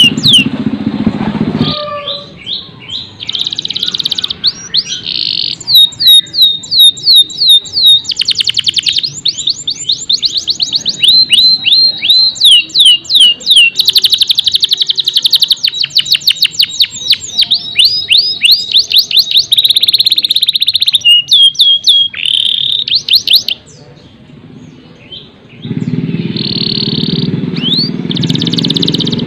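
Domestic canary singing: fast trills of repeated high notes that sweep downward, broken by buzzy rolls, with a short pause about two-thirds of the way through.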